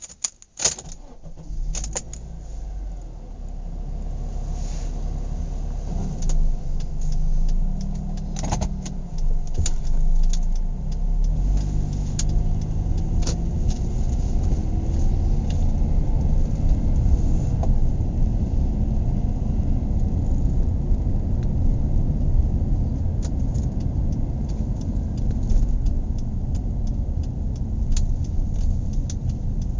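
Car heard from inside the cabin: a few clicks and rattles near the start, then the engine running with a low rumble. Its pitch rises and falls briefly, then from about eleven seconds in it gives way to louder, steady engine and road noise as the car drives.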